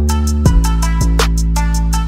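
Background music with a steady beat: a heavy sustained bass under regular drum hits.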